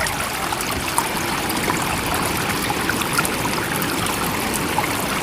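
Steady running water, a trickling, bubbling stream-like flow with no rise and fall of waves.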